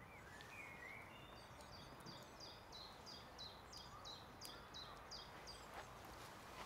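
A songbird singing faintly: a quick series of a dozen or so short high notes, each falling in pitch, over faint outdoor hiss.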